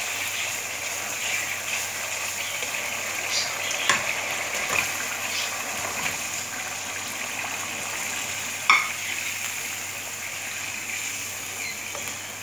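Spice masala sizzling in hot oil in a non-stick kadai, a steady frying hiss. A few short knocks and clicks sound over it, the loudest about nine seconds in.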